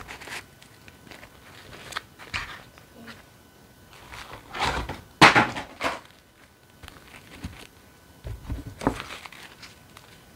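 Disney Princess Royal Shimmer fashion dolls being handled and set down side by side: brief rustles and a few knocks and taps, the sharpest a little past the middle and another cluster near the end.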